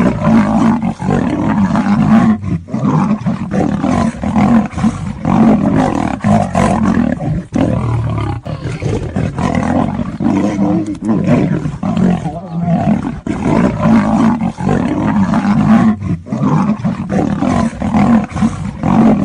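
A lion and a tiger roaring and snarling as they fight, in a loud, unbroken run of growls and roars.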